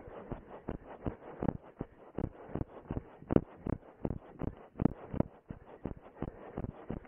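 Running footsteps on grass and dry ground, a steady rhythm of thuds about three a second, picked up by a camera worn on the runner's body.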